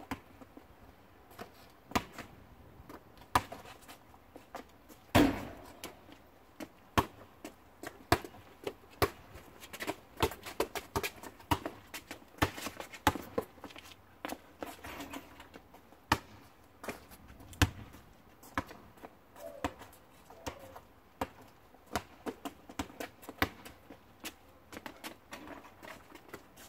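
A basketball bouncing on an asphalt driveway as it is dribbled, mixed with sneaker footsteps: a run of irregular sharp thuds, with the loudest about five seconds in and another strong one near the eighteenth second.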